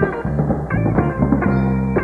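Electric guitar playing a blues lead with bent notes, over bass and drums.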